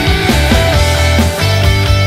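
Background rock music with strong bass notes and a steady beat.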